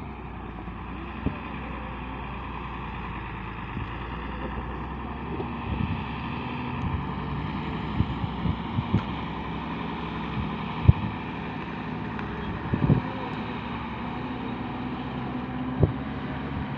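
Diesel engine of a loaded Hino FM truck running steadily as the truck crawls over rough ground, its pitch rising and falling slightly. Gusts of wind buffet the microphone with scattered thumps.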